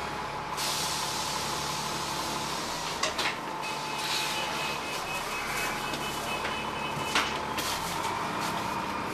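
Dennis Trident double-decker bus with a three-speed Voith gearbox running, heard from inside the saloon: steady engine and transmission noise with a faint high whine in the middle. Two short knocks or rattles come about three seconds in and again about seven seconds in.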